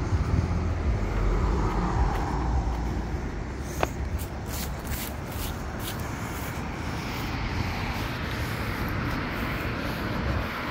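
Outdoor storm ambience: gusting wind buffets the microphone with an uneven low rumble, strongest in the first few seconds, while road traffic hisses along a nearby street. A few light clicks sound about four to six seconds in.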